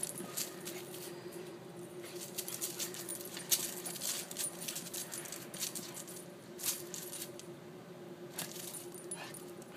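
Metal dog collar tags jingling and clinking in quick, irregular bursts as two dogs play-wrestle, with a faint steady hum underneath.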